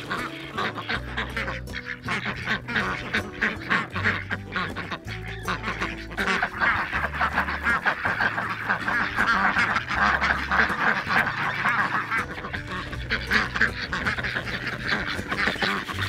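A flock of domestic ducks, white Pekins among them, quacking busily with many calls overlapping, louder and denser about halfway through as they crowd in for feed. Soft background music with a steady bass line runs underneath.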